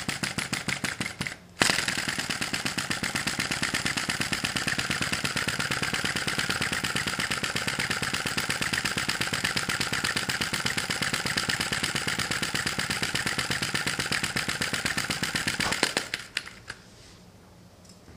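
Sai Hu V1-45 flame-licker (vacuum) model engine, still hot from an earlier run, started by hand and running with a rapid, even ticking clatter. The sound breaks off briefly about a second and a half in, then stops abruptly near the end.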